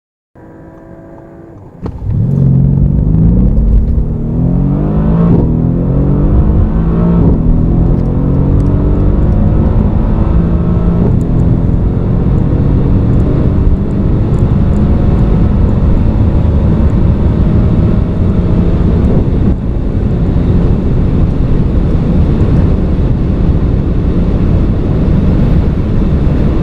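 High-performance twin-turbo sports car accelerating flat out from a standstill. A short, quieter steady engine note comes first. About two seconds in, the car launches and the engine pitch climbs and drops back at a few quick upshifts, then rises more slowly in the higher gears while staying loud. It cuts off suddenly at the end.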